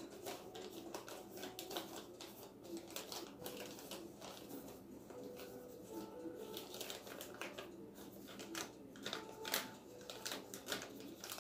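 Faint, irregular clicks and rattles of someone rummaging through packets and containers, searching for a seasoning package.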